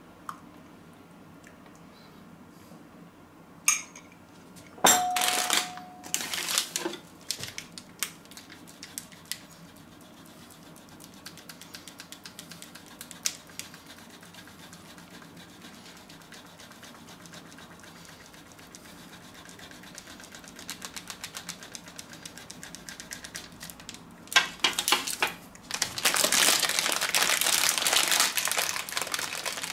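A few knocks and a spoon clinking against a ceramic mug. Then a block of marzipan is rubbed over a flat metal grater in fast, even strokes. Near the end comes the loudest sound: a plastic bag of sliced almonds crinkling as it is opened.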